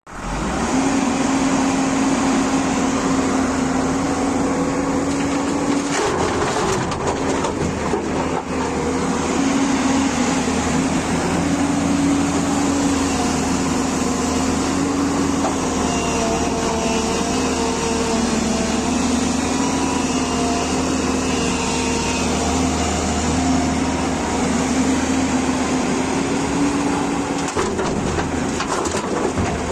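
Hydraulic excavator running under load: a steady diesel rumble with a wavering hydraulic whine that shifts slightly in pitch as it works, and a few short knocks near the start, middle and end.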